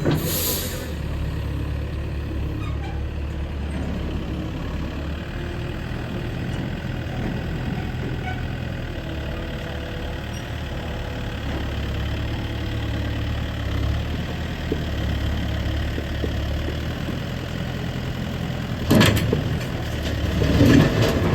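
Sany SY95C excavator's diesel engine idling steadily. There is a brief hiss at the start and a few knocks or clanks near the end.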